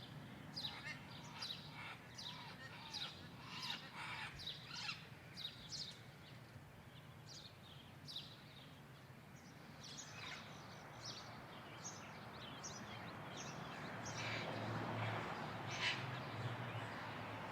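A flock of red-crowned amazon parrots calling, giving short, harsh squawks again and again, thickest in the first few seconds and sparser after, over a steady low background hum.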